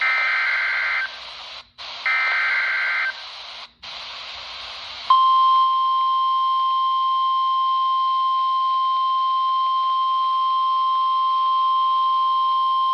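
NOAA Weather Radio broadcast heard through a RadioShack 12-254 weather radio's speaker: two bursts of SAME digital header data, each a screechy warble about a second long, with static hiss between them. About five seconds in, the steady 1050 Hz weather radio alert tone begins and holds, signalling an incoming Emergency Alert System severe thunderstorm warning.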